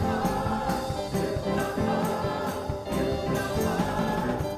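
Closing music: a gospel-style song with a choir singing over a steady beat.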